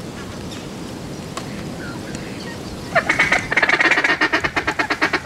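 A duck call blown in a fast, loud run of rapid quacks, starting about three seconds in and stopping abruptly.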